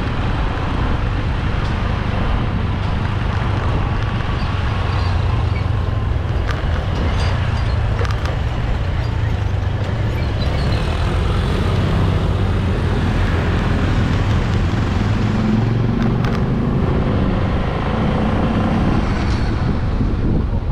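Honda motorbike engine running steadily with road and tyre noise, heard from the rider's seat.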